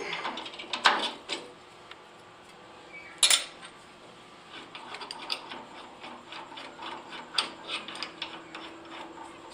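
Metal tools and parts being handled at a workbench: scattered clicks and knocks, two sharper ones near the start, then a run of lighter taps. A faint steady hum comes in about seven seconds in.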